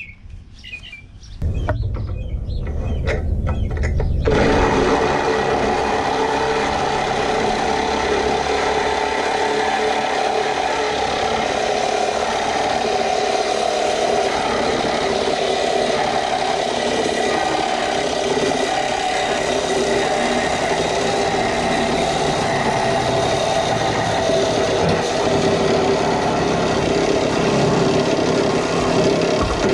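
Corded Milwaukee Sawzall reciprocating saw starting up about a second and a half in, then cutting steadily through a Cessna 172's metal wing lift strut from about four seconds in.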